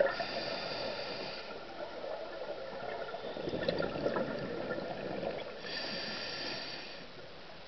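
Scuba regulator breathing underwater: a hissing inhalation at the start and again near the end, with a spell of exhaled bubbles burbling and gurgling in between.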